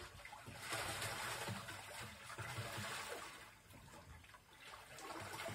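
Paddle wheel of a two-seater pedal boat churning the water: a steady trickling splash that eases off for a moment a little past halfway.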